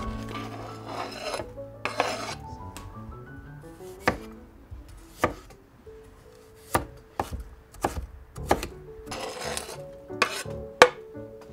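Food-preparation sounds in a kitchen: a series of sharp knocks and bursts of scraping, over background music with a melody.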